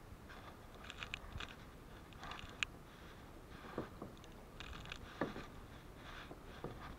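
Kayak paddle strokes in choppy water: the double-bladed paddle dipping and pulling, with irregular small splashes and drips and water slapping near the hull.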